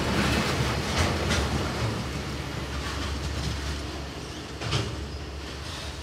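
Container wagons of an intermodal freight train rolling past: a low rumble of wheels on rail that fades as the last wagons move away, with a few sharp wheel clacks.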